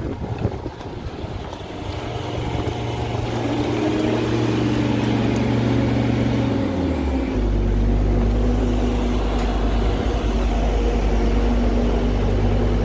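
A vehicle engine running steadily. About seven seconds in its pitch drops and it settles into a lower, deeper, slightly louder drone.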